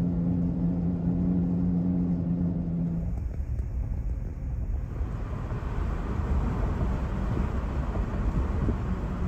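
Road noise of a moving vehicle heard from inside: a steady low hum with a drone for about three seconds, then a rougher rumble with rushing wind noise that grows about five seconds in.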